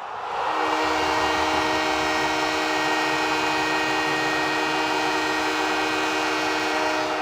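Hockey arena goal horn, an air horn sounding one long, steady chord from about half a second in, over a haze of crowd noise; most of its notes drop out near the end.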